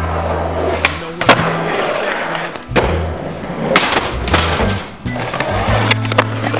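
Skateboard wheels rolling on concrete, with several sharp clacks of the board, over background music with a steady bass line.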